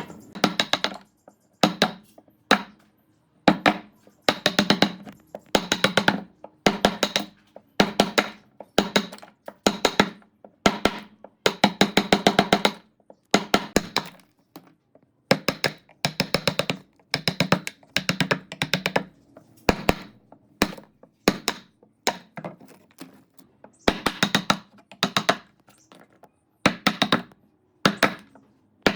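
Repeated bursts of rapid tapping and knocking on wood, each burst up to about a second long with short pauses between.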